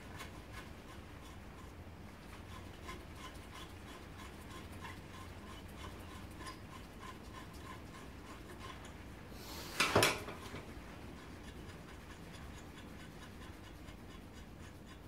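Work on a motorcycle wheel's old steel spokes as they are unthreaded and pulled out of the hub: faint rubbing with a steady run of soft ticks, about two or three a second, then one sharp clatter about ten seconds in.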